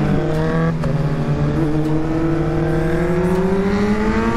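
Kawasaki Z900's inline-four engine accelerating hard, heard from the rider's seat: the revs dip with upshifts in the first second or two, then climb steadily.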